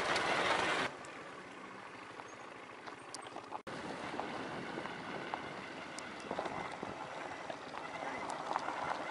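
Motorcycle riding along a gravel dirt track: steady engine and road noise that changes level abruptly where the footage cuts, about a second in and again just before four seconds, with a few faint clicks.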